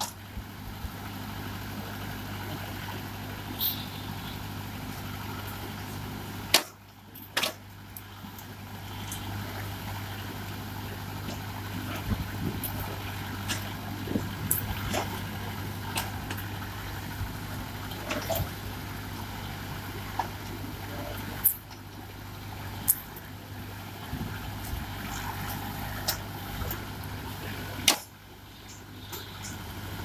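Mahindra tractor's diesel engine running steadily while its AgriBULL backhoe bucket digs through brick and concrete rubble. Scattered clinks and knocks of rubble, with three much louder sharp knocks.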